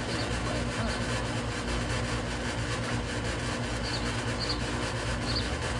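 Steady low hum of outdoor background noise with a few faint, short high chirps.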